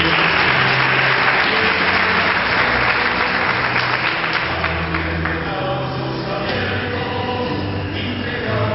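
Crowd applauding over music with sustained low notes; after about five seconds the clapping thins and a choir's singing comes through.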